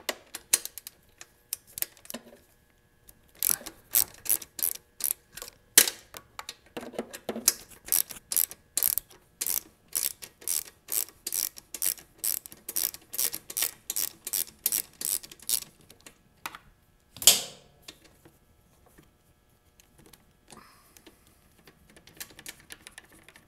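Socket ratchet clicking in a long run of quick, evenly spaced clicks as it backs out a gas-tank mounting bolt, then a single louder knock.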